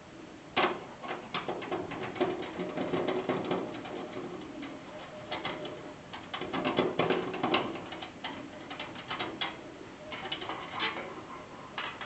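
Irregular clicks, taps and rattles of metal and plastic parts being handled inside a desktop computer case, as a part blocking the video card slot is worked loose and taken out.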